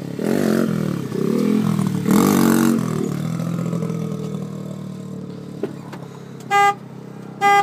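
Pit bike engine revving up and down several times, then running steadier and fading as the bike moves off. Near the end a vehicle horn beeps twice, briefly.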